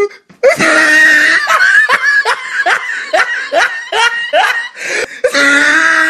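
A person laughing hard: a long high opening cry, then a quick run of 'ha' bursts, about three a second, ending on a drawn-out note.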